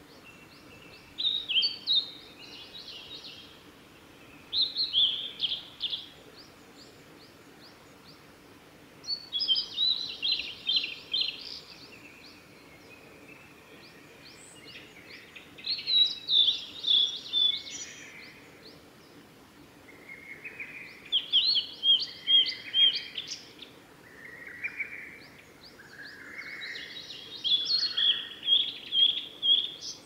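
Male blue-and-white flycatcher singing: six phrases of quick, high notes, each lasting two to three seconds and coming about every five or six seconds, with softer, lower notes between the later phrases.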